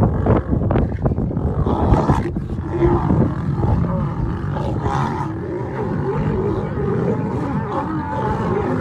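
A pride of lions growling and snarling as they scuffle together at close quarters, with several sharp, sudden snarls in the first two seconds, then continuous rough growling.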